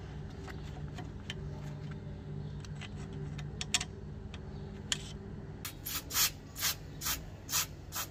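Faint scraping and small ticks of a rusty steel screw being worked out of a rusted machine-gun receiver, first with a thin blade and then by fingers. Near the end comes a quick run of about five short, loud hissing bursts, roughly two a second.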